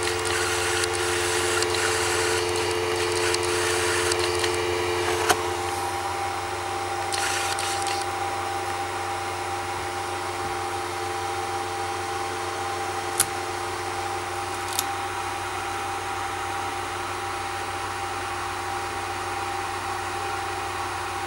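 CTC 3D printer's fans running steadily after the print has finished: a hum with a few steady tones, one of which shifts about five seconds in. Scraping and handling noises come over the first several seconds, and a few sharp clicks are scattered through.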